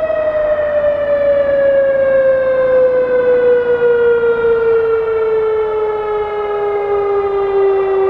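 Whelen WS-2016 electronic outdoor warning siren winding down at the end of its signal: one loud, steady tone sliding slowly and evenly lower in pitch. A fainter second siren tone sounds just above it near the end.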